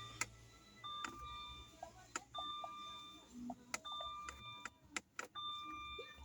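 A faint electronic two-tone chime repeating about every second and a half, with scattered light clicks between the chimes.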